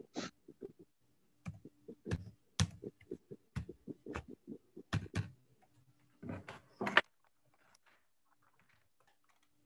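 Irregular sharp clicks and knocks, about fifteen over roughly seven seconds, like keys or small objects handled at a desk. They stop about seven seconds in, leaving a faint steady hum.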